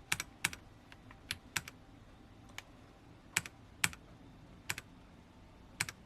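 Keys of a Royal Kludge RK-H81 mechanical keyboard with brown switches pressed one at a time, about ten separate clicks at uneven intervals, as key shortcuts are tried out.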